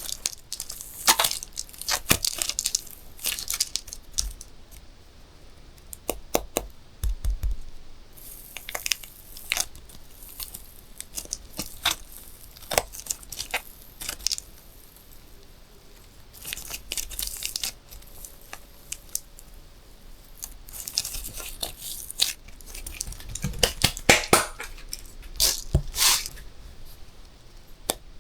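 Balloons being handled and popped: a string of sharp pops and crackles, with short stretches of rubbing and crinkling between them.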